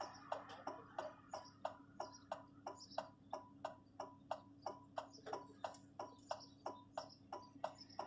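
Truck's hazard-light flasher clicking steadily, about three clicks a second, over the low hum of the engine idling.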